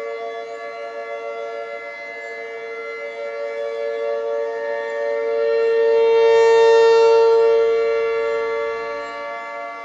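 Outdoor warning siren sounding a steady tone in a routine test. It swells to its loudest about seven seconds in, then fades again.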